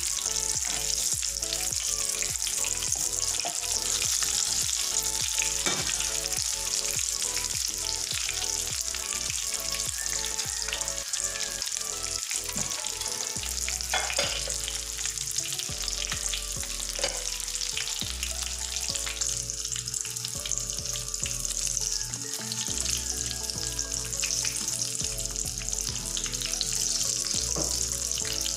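Egg-coated eggplant omelettes shallow-frying in hot oil: a steady sizzle with scattered small pops.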